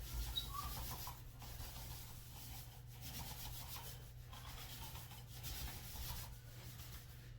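Paint roller rolling back and forth across a ceiling: faint rubbing strokes that repeat about every second or so.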